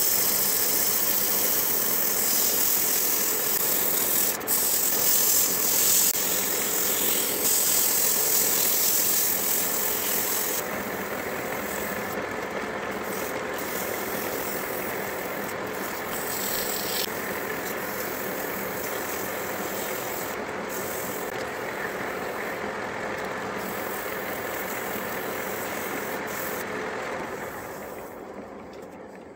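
Wood lathe running while sandpaper is held against the spinning turned vase: a loud steady hiss for about the first ten seconds, then a quieter steady rubbing over the lathe's hum. The sound fades away near the end as the lathe stops.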